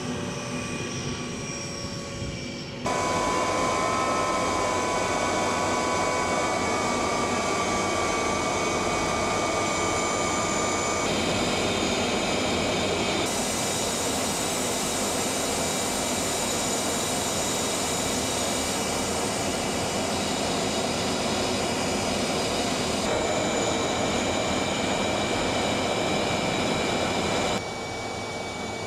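Jet engine running: a steady rush with high whining tones over it. Its level and tone change abruptly several times, with a quieter stretch at the start and near the end.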